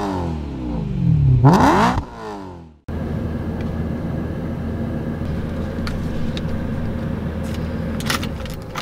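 Car engine revving in repeated rising and falling sweeps for the first few seconds. It cuts off suddenly, and a Lotus Evora 400's supercharged V6 is then heard idling steadily from inside the cabin, with a few light clicks.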